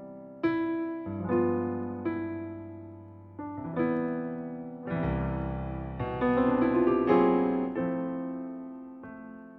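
Background piano music: slow chords struck every second or two and left to ring and fade.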